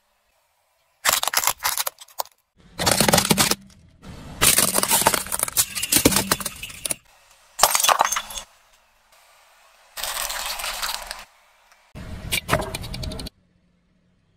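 Car tyre crushing brittle objects: a string of separate crunching and cracking bursts, the longest lasting about three seconds in the middle, each cut off abruptly with silence between.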